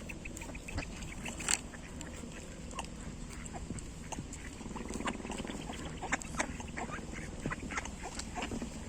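Ducks and geese calling on a lake: many short scattered calls, with a quick run of short high notes, about eight a second, in the first second.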